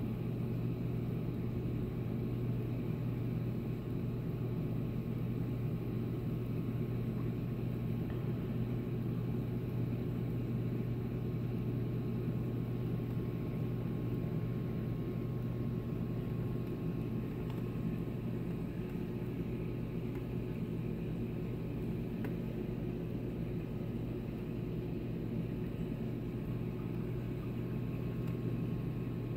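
Saltwater aquarium equipment humming steadily: a low, even drone with no breaks.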